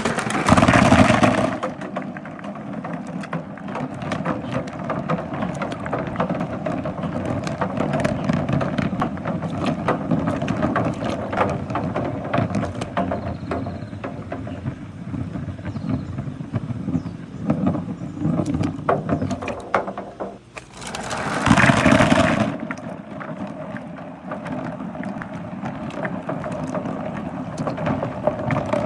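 Marbles rolling and clattering around a big funnel in a marble run: a continuous rolling rumble with many small clicks. It gets louder briefly at the very start and again about three quarters through.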